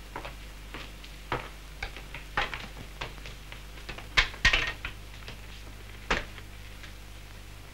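Footsteps on a hard floor, about two a second, then a cluster of knocks and clatter about four seconds in and one more knock near six seconds as hats are hung on a coat stand.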